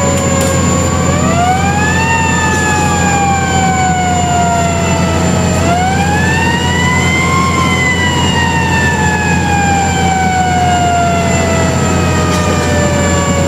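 Fire truck siren heard from inside the cab. It winds up twice, about a second in and again about five and a half seconds in, each time climbing quickly and then sliding slowly down. Under it runs the steady drone of the truck's engine, and a constant high whine sits over everything.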